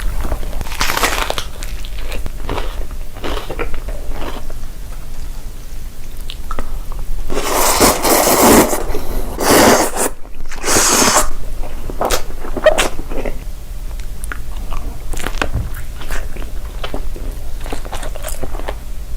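Someone biting into and chewing crunchy food in a run of short, crackly crunches, with louder, denser crunching about seven to nine seconds in and again around eleven seconds.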